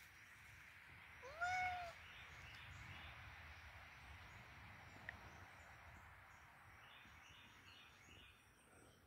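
A cat meows once about a second and a half in: a short call that rises and then holds its pitch. Around it is only faint outdoor background.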